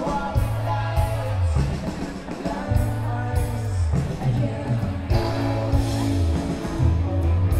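Live pop-rock band playing, with an electric bass line that steps down in pitch in repeated phrases over drums, keyboards and guitar, and a voice singing.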